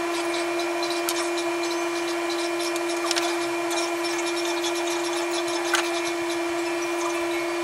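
A small electric motor running steadily with a rushing hiss of air, a fan-driven tool switched on just before, with faint clicks and rubbing of wire being handled.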